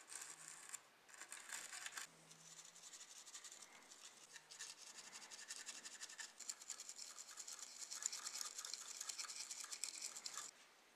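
A small stiff brush scrubbing the dirt-caked underside of a die-cast BMW Z4 model car in rapid scratchy strokes, loosening caked grime. The scrubbing stops shortly before the end.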